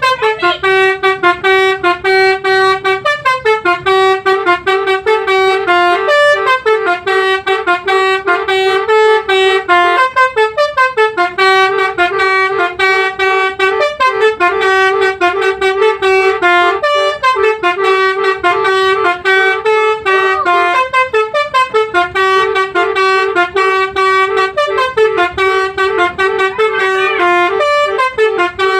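Telolet basuri musical bus horn playing a loud multi-note tune. The air-horn notes pulse in a quick rhythm and shift in pitch every second or two.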